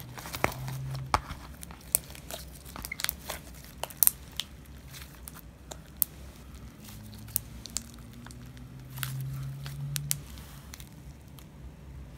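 Sticky white fruit-piece slime being stretched, folded and squeezed by hand, giving irregular sharp clicks and pops.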